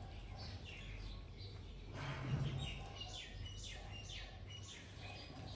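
Songbird chirping in the background: a run of short notes that fall quickly in pitch, thickest a little past the middle, over a faint steady hum. A soft dull bump is heard about two seconds in.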